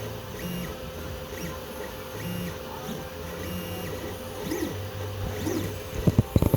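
Sunlu 3D printer printing, its stepper motors whirring in short tones that change pitch as the print head moves back and forth over a steady hum. A few sharp knocks come near the end.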